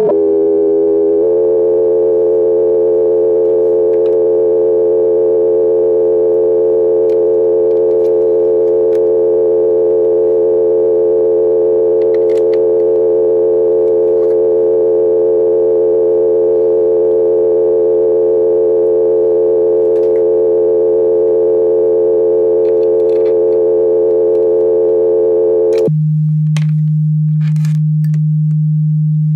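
Hikari Instruments SINE Eurorack oscillator producing a steady electronic tone with many overtones, which jumps to a new pitch about a second in as its pitch slider is set. About four seconds before the end the tone drops abruptly to a lower, plainer hum, with a few faint clicks around it.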